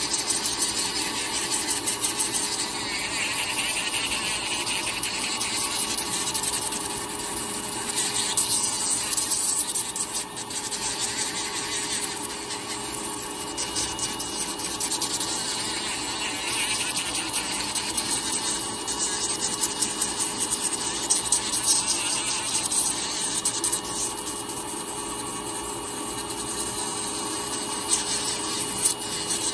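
Electric podiatry nail drill running steadily, its burr grinding down a thickened, crusty toenail: a steady motor whine under a gritty grinding hiss that swells and eases as the burr is pressed to the nail.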